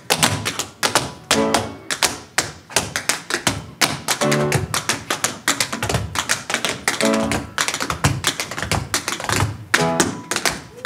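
Tap shoes of two dancers striking the stage in fast, rhythmic taps, with short musical chords every few seconds.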